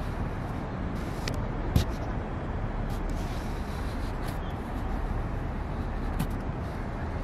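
Steady low outdoor rumble, strongest in the bass, with a few faint clicks and one sharp knock a little under two seconds in; no chanting voice stands out.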